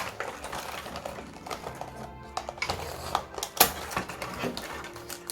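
Quick irregular clicks and knocks of small plastic toy pieces being handled and pulled from their packaging, over quiet background music.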